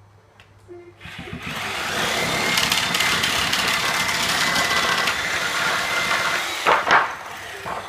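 Porter-Cable Tiger Saw reciprocating saw running steadily for about five seconds as its blade cuts the nails between a pallet board and the stringer, stopping suddenly, followed by two knocks as the freed board comes loose.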